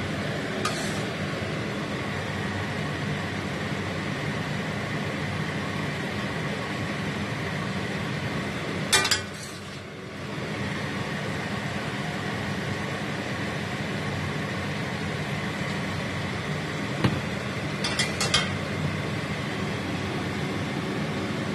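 A few sharp clinks of a serving utensil against a plate and pan as stir-fried napa cabbage is dished out, the loudest about nine seconds in. A steady whirring hum runs underneath.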